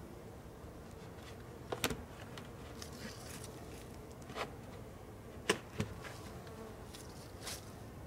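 Honeybees buzzing faintly around a beehive, with several short knocks of the hive's outer cover being set and shifted in place on the box; the sharpest knocks come about two seconds and five and a half seconds in.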